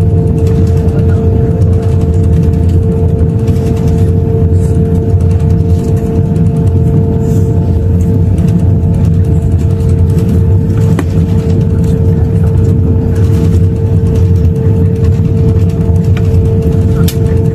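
Airbus A350-1000 cabin noise while taxiing: its Rolls-Royce Trent XWB engines at low taxi power give a steady loud low rumble with a constant hum over it.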